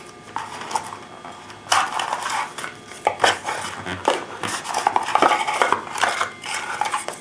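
Hands handling a small cardboard box and the paper booklets inside it: irregular rustling and scraping of card and paper with light clicks and taps, busiest in the middle.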